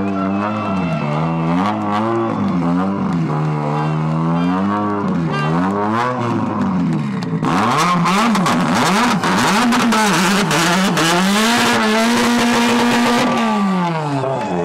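Rally car engine heard onboard, revs rising and falling through gear changes. From about halfway a loud rush of noise with rapid crackles joins it while the engine note holds steady, then eases off near the end.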